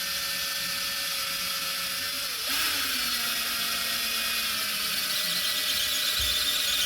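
Power drill running steadily as it drills holes into the wooden table legs, with a high whine. About two and a half seconds in its note drops and gets a little louder, then runs steady again.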